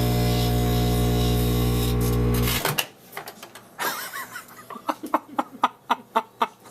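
Microwave oven running with a loud buzzing hum while a match-lit plasma burns inside, cutting off suddenly about two and a half seconds in. A string of short sharp clicks and crackles follows.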